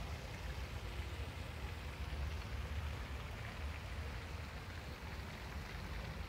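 Steady hiss of fountain water splashing down onto a pond's surface, over a low rumble.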